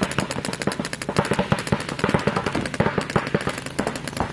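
Paintball markers firing in rapid streams, a dense run of sharp pops many times a second.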